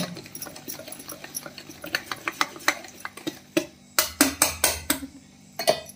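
A metal utensil stirring thick batter in a stainless steel bowl, clinking and scraping against the sides in an irregular run of taps. The baking soda has just been mixed in and the batter is frothing.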